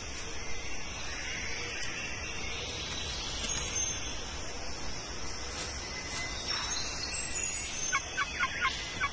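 A male Victoria's riflebird in courtship display, his raised, spread wings giving off faint swishes over a steady high hiss of rainforest insects. Near the end a run of short ticks starts, about four a second.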